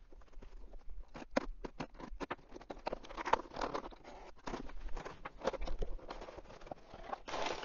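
A knife cutting through plastic wrap and tape on a cardboard shipping box: a run of sharp clicks and short scraping strokes, then a louder tearing rustle near the end as the box is opened.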